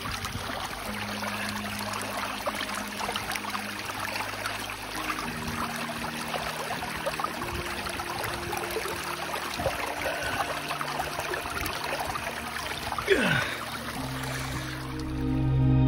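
Shallow moorland stream running over stones while a soft-flask filter bottle is held in the current to fill, with one brief falling gurgle near the end. Soft background music runs faintly underneath.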